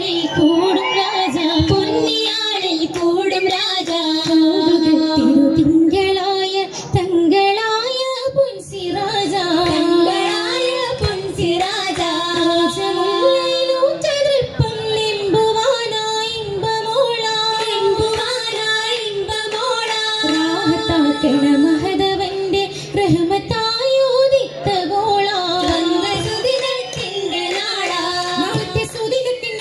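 Female voices singing an oppana song, the Mappila folk song that accompanies the dance, with long held notes in a flowing melody.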